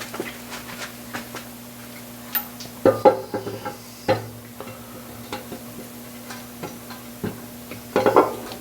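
Scattered clicks and knocks of metal engine parts being handled during crankshaft reassembly, the loudest about three seconds in and again near the end, over a steady low hum.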